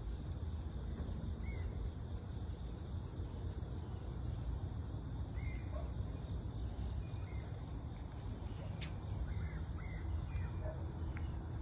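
Outdoor ambience: a few faint, short bird chirps scattered over a steady low rumble.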